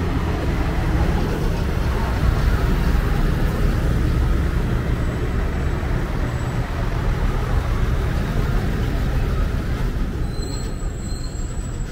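Military vehicles in a mobile column driving past, a steady heavy engine rumble with road noise.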